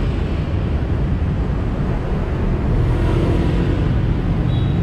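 Steady city street traffic noise, with a low engine rumble from passing vehicles.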